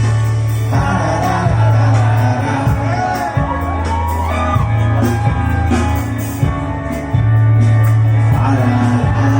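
Live rock band playing, with long held bass notes, drums, and a singing voice whose notes glide up and down about two to five seconds in.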